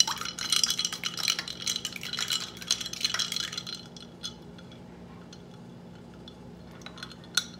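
Metal knife stirring ice water in a ceramic mug, the blade and ice clinking rapidly against the sides. The clinking stops about four seconds in as the knife is lifted out, with one more click near the end.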